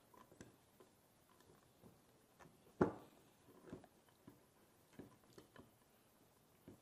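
Faint handling noise of diaphragm pump parts: a few light clicks and knocks as the diaphragm assembly and diaphragm rod are worked out of the pump's center body, with one sharper knock about three seconds in.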